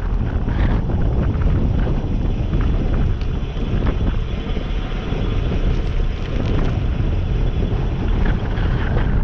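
Wind buffeting the microphone of a GoPro on a moving bicycle: a loud, steady rumble.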